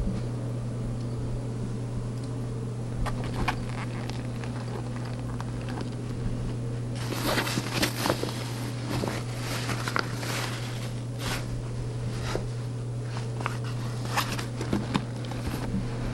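A steady low hum throughout. From about seven seconds in come dense rustling and sharp clicks as clothes and a bag with metal fittings are handled.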